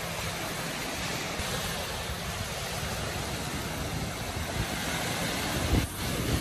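Sea surf breaking and washing up a beach: a steady rushing noise with a low rumble underneath, and a short bump near the end.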